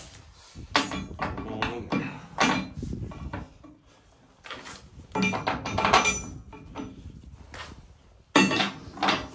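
Irregular metallic clanks and clinks as a heavy steel router insert plate is shifted into place against a scraper bowl and plow bolts are picked up off the steel floor. The loudest knocks come near the end.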